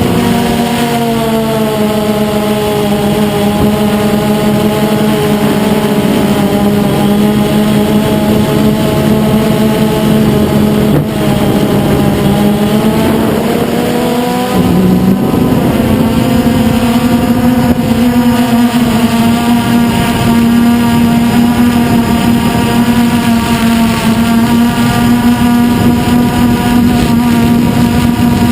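DJI Phantom 2 quadcopter's electric motors and propellers buzzing steadily in flight, several close pitches together, with the pitch stepping up about halfway through as the drone changes thrust.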